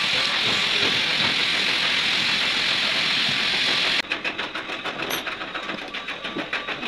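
Workshop machinery noise: a loud steady hiss that cuts off abruptly about four seconds in, followed by a quieter, even, rapid ticking of about eight ticks a second, like a running engine or machine in the background.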